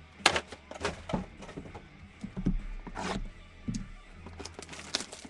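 Cardboard trading-card boxes and packs being handled and set down on a desk: cardboard sliding and scraping, with several sharp knocks as boxes are put down.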